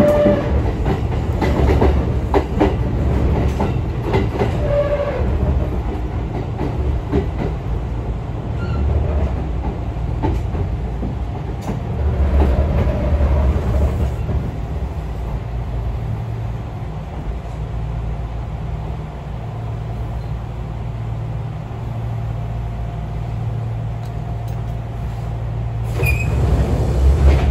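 Running noise heard inside a Kintetsu express train's passenger car: steady wheel-and-track rumble with clacking over rail joints and a few brief wheel or brake squeals, the loudest squeal near the end.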